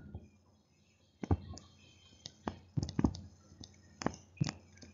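Stylus on a tablet screen, scattered light clicks and taps as words are handwritten, about eight in all, irregularly spaced.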